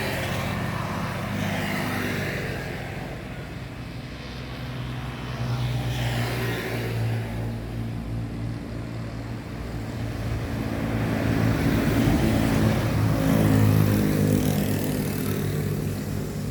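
Engine hum of motor vehicles on a nearby road, a steady low drone that swells and fades twice as vehicles pass, the louder pass near the end.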